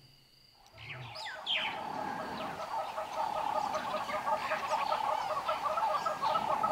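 Dawn chorus of birds: many overlapping chirps and calls over a fast, steady run of repeated calls. It rises out of near silence about a second in.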